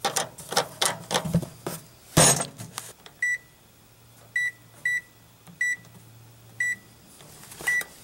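Clicks and knocks of a damaged microwave being handled, then six short keypad beeps at one high pitch at uneven intervals as its buttons are pressed. The oven beeps at each press but does not start, which the owner puts down to a safety feature after a cartridge case blew through its door.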